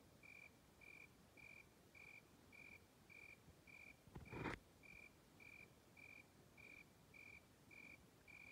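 Faint, steady chirping of a cricket, a little under two evenly spaced chirps a second, with one short knock about four seconds in.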